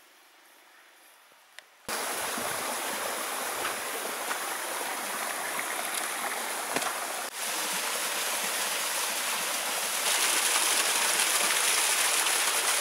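Small stream of water running down over rocks, a steady rushing hiss that starts suddenly about two seconds in and gets louder near the end.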